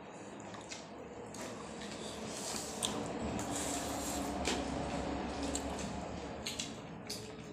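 Eating by hand: fingers working rice and leafy salad on a plate and carrying it to the mouth, with chewing and a few small clicks.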